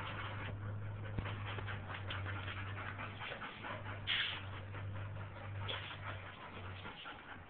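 A dog whimpering, with a brief louder high cry about four seconds in and another shorter one near six seconds, over scattered clicks and a steady low hum.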